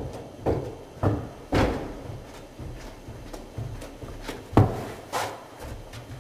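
Irregular thumps and knocks from a person moving about a small room among plastic chairs, about five of them, the loudest about four and a half seconds in.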